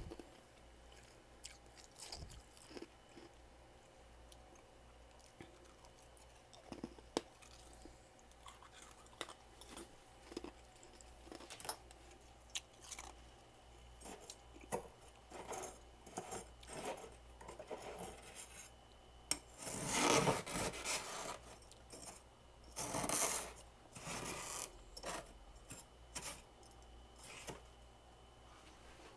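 Freezer frost being scraped and chewed: scattered small scratchy crackles throughout, with two louder crunching bursts about twenty and twenty-three seconds in.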